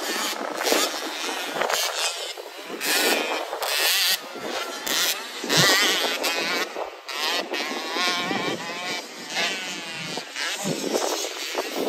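Motocross dirt bike engines revving up and down as riders race around the track, the engine pitch rising and falling repeatedly and most plainly in the second half.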